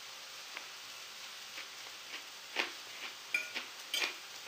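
Metal fork clicking and clinking against a porcelain plate as chopped endive is eaten: a few light taps, then several ringing clinks in the last second and a half. Under it runs a faint, steady sizzle of the cod fillet frying in the pan.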